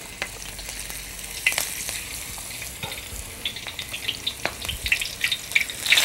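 Chickpea-flour-battered spinach pakoras deep-frying in hot ghee: a steady sizzle with many small crackling pops, getting louder and busier toward the end.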